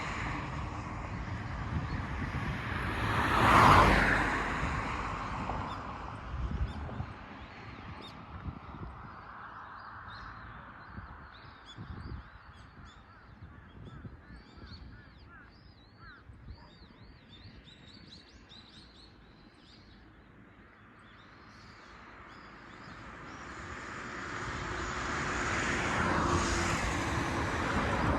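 A vehicle passes close by about four seconds in, its noise swelling and dying away quickly. In the quiet that follows, small birds chirp in short high calls. Near the end, another vehicle grows steadily louder as it approaches.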